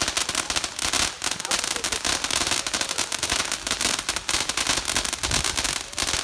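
A consumer firework going off with loud, dense crackling: a rapid, continuous run of sharp pops.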